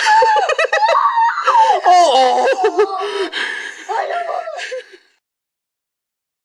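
Young children laughing and giggling in high voices, cutting off suddenly about five seconds in.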